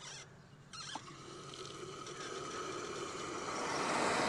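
Hot Great Artesian Basin bore water, under about 160 psi and at 100 °C, jetting from a bore-head valve as it is opened. It makes a rushing hiss that grows steadily louder, with a short squeak about a second in.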